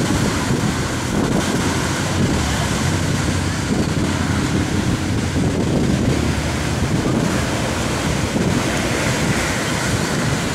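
Ocean surf washing onto the shore, with wind buffeting the microphone in a steady low rumble.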